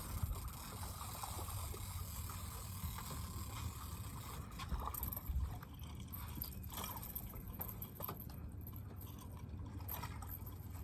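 Wind rumbling on the microphone and water lapping against a fishing boat, with a few scattered light knocks and clicks.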